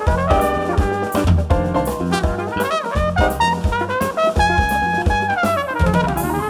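Live band playing: a trumpet carries a melodic line with bending notes over drum kit and bass guitar.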